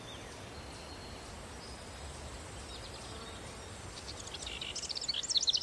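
Faint outdoor ambience with a low rumble and scattered high chirps; from about four seconds in, a rapid run of high-pitched animal chirps starts and grows louder toward the end.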